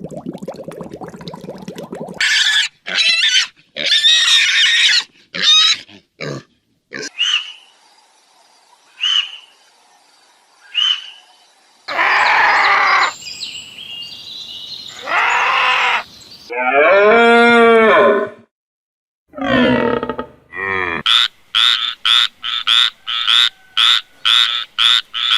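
A string of different animal calls played one after another: a buzz for the first two seconds, then short separate calls, a long pitched call past the middle, and a fast run of short repeated calls near the end.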